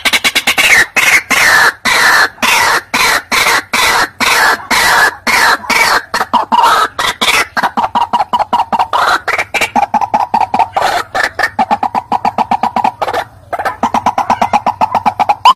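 White-breasted waterhen calling: a loud, fast run of harsh repeated notes, several a second, settling about halfway into an even series of lower, steadier notes.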